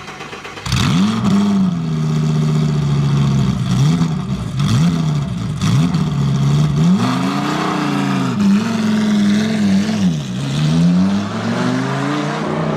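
BMW X6 M50i's twin-turbo V8 engine and exhaust revved repeatedly: a string of quick throttle blips, each rising in pitch and falling back, starting about a second in.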